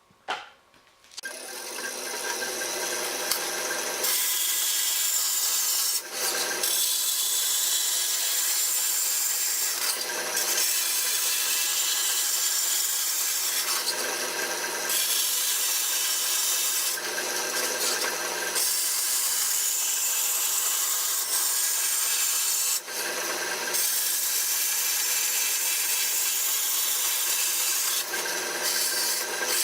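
Angle grinder cutting steel plate: a steady, loud grinding that starts about a second in, its tone shifting and briefly dipping every few seconds as the cut goes on.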